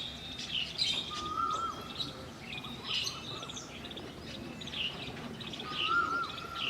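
Park ambience: several birds chirping and twittering, with one bird giving a short whistled phrase twice, about a second in and again near the end.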